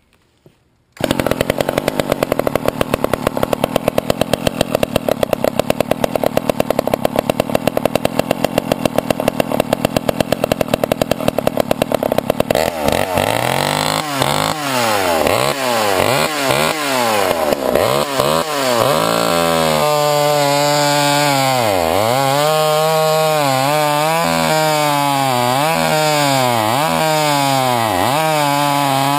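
Poulan two-stroke chainsaw engine comes in suddenly about a second in and runs at a steady low speed. From about halfway through, the throttle is blipped over and over, the engine pitch rising and falling every second or two.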